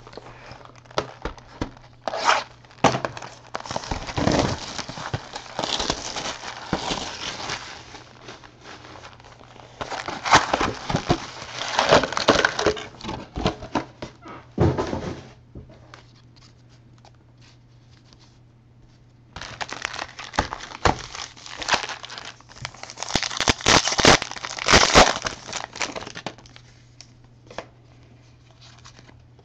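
Hobby box of 2014 Bowman Draft cards being opened, and its foil card packs pulled out and torn open: crinkling, rustling and tearing in two long bouts with a quiet pause between them.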